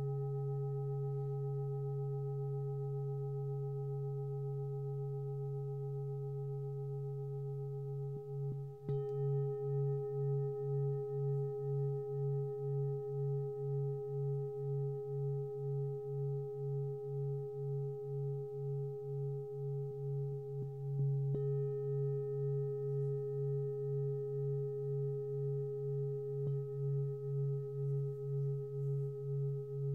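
A 27.5 cm lingam singing bowl ringing with a deep hum over a few higher steady tones. It is struck twice, about nine seconds in and again about twenty-one seconds in, and each strike renews the ring. After the first strike the deep hum pulses at an even rhythm, a little under two beats a second, which is typical of a lingam bowl.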